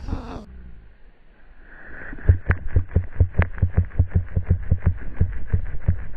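A pug bounding through deep snow: rapid rhythmic thumps of her strides, about five a second, starting about two seconds in.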